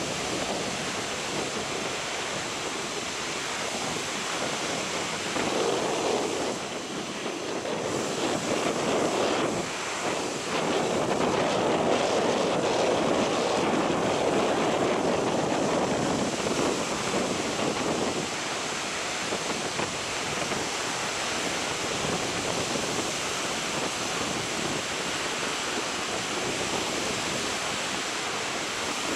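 Steady rushing wash of surf and wind, with no distinct events; it swells louder briefly about five seconds in and again for several seconds from about ten seconds in.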